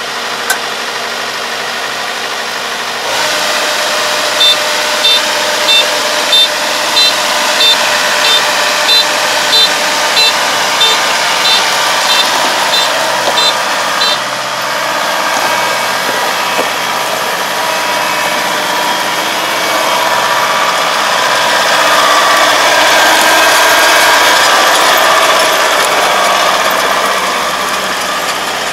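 Kubota ER470 combine harvester's diesel engine running as the machine travels on its crawler tracks. From about four seconds in to about fourteen, a warning beeper sounds a steady series of short high beeps, about three every two seconds. The engine grows louder in the second half as the combine comes close.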